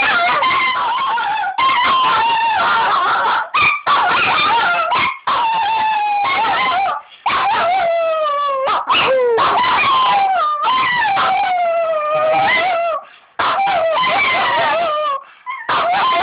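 Two dogs howling together in a long run of howls. Each howl slides down in pitch, with short breaks between them.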